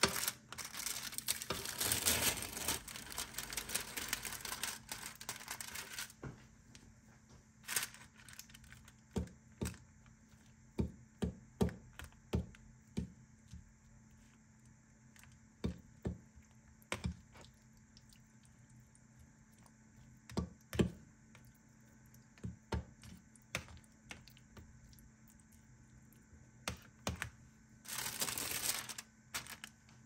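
Thin plastic film lid crinkling as it is peeled back from a plastic ready-meal tray. Then a metal fork clicks and scrapes against the tray in scattered taps as the rice and curry sauce are stirred. Near the end the film crinkles again briefly as it is laid back over the tray.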